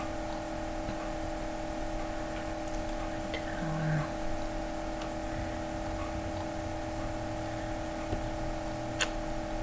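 Steady background hum with a few fixed tones, a brief low hum about four seconds in, and a single click near the end.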